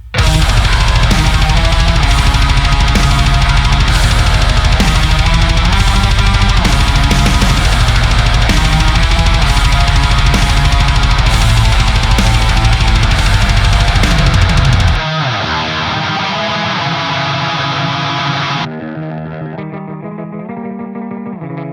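Heavy metal riffing on a high-gain electric guitar through a Lichtlaerm Audio Medusa, a Boss HM-2-style 'chainsaw' distortion pedal, into a Peavey 6505 amp, with a programmed drum kit. About 15 seconds in the drums and bass drop out and the guitar goes on alone, sounding thinner and filtered, and thinner still near the end.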